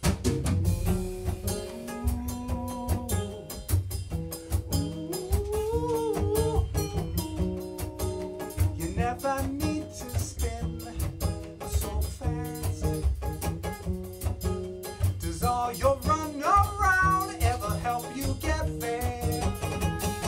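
Live acoustic band music: two acoustic guitars strumming chords over a drum kit's steady beat, with a melodic lead line gliding over the top in an instrumental passage.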